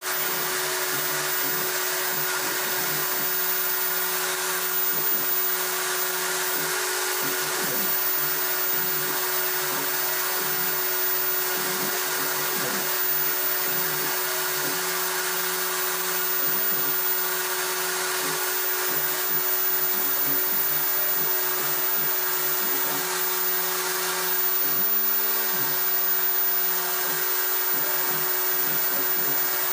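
CNC engraving machine at work: the spindle runs at a steady whine while a fine engraving bit cuts lettering into a glossy black sheet. Lower motor tones shift and break off every second or so as the head moves between strokes.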